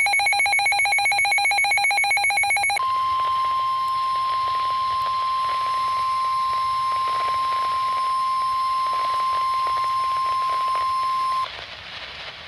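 Emergency Alert System SAME digital header, a rapidly warbling electronic buzz, ends about three seconds in. The National Weather Service's single steady attention tone, 1050 Hz, follows for about nine seconds and then cuts off suddenly.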